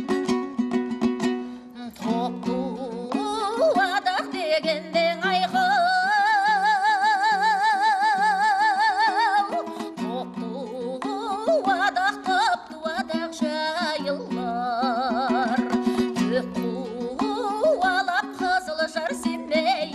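Kazakh folk song: a singer holds a long note with wide vibrato about a quarter of the way in, then sings shorter wavering phrases, over steadily strummed plucked-string accompaniment.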